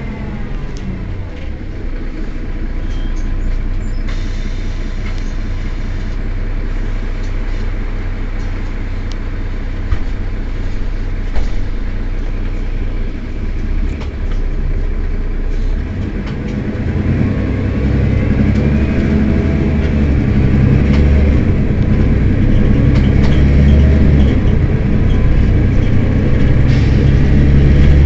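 Mercedes-Benz Citaro city bus's diesel engine running at a standstill. From about halfway through it grows louder, with a deeper rumble and a rising note.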